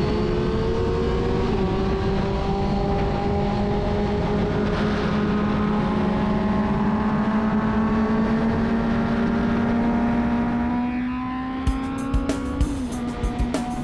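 Inline-four sport motorcycle engine running at high revs, its pitch creeping slowly upward as it pulls, then dropping once near the end as it shifts up a gear. Sharp rhythmic clicks of music come in over it in the last couple of seconds.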